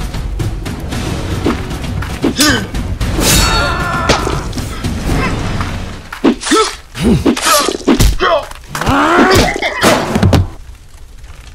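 Fight-scene sound effects over music: a run of heavy thuds and blows mixed with pained cries and grunts, loudest between about six and ten seconds in, then dropping away.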